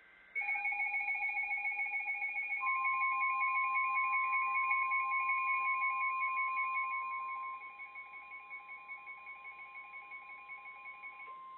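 Emergency alert attention tones: a rapidly pulsing two-pitch alarm starts about half a second in. About two and a half seconds in, a steady single-pitch weather-radio warning tone joins it. The whole gets quieter about seven and a half seconds in, and both tones stop near the end.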